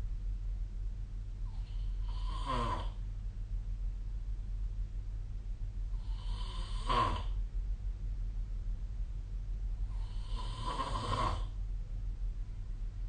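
A sleeping person snoring: three snores about four seconds apart, each lasting about a second, over a steady low hum.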